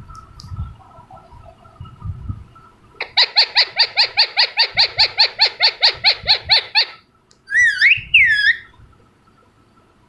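Alexandrine parakeet giving a rapid run of harsh calls, about five a second for some four seconds, then two longer calls that rise and fall in pitch.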